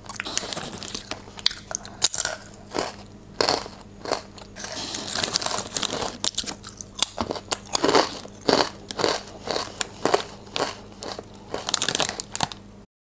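Potato chips being bitten and chewed close to the microphone: a fast, irregular run of crisp crunches with short pauses between mouthfuls, stopping abruptly near the end.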